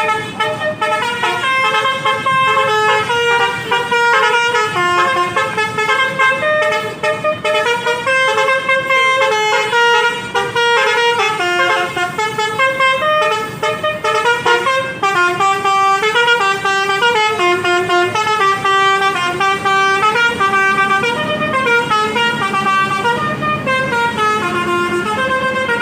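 Bus 'telolet' multi-tone musical horn playing a long, loud melody, its notes stepping up and down without a break. It is the horn of the NPM bus 'Tuan Muda'.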